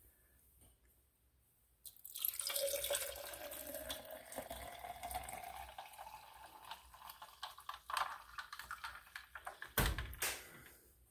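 Blended lemonade pouring in a steady stream from a glass pitcher into a tall glass over ice, starting about two seconds in and stopping near the end, with one sharp knock shortly before it stops.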